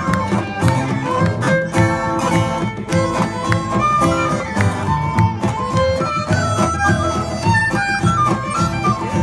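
Live folk band playing an instrumental passage: fiddle carrying a quick melody over strummed acoustic guitars, upright bass and bodhrán.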